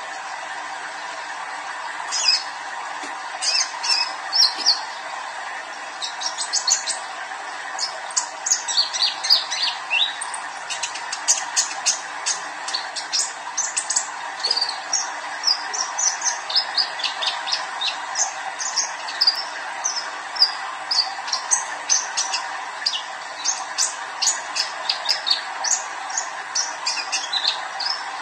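Juvenile male sunbird singing a long run of quick, thin, high-pitched chirps and twittering trills, over a steady background hum.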